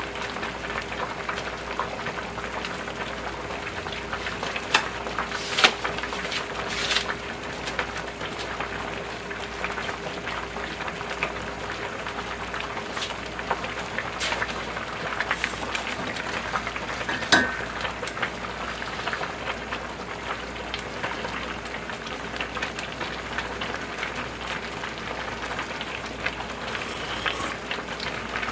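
Thick pork-bone soup bubbling at a full boil in two large stainless-steel stockpots, a steady crackling bubble. A faint steady hum runs under it for the first two-thirds, and a few sharp clicks stand out, the loudest about 17 seconds in.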